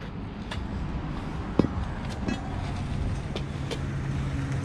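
A van's engine running as it drives up close, its steady hum growing gradually louder, with a few light knocks.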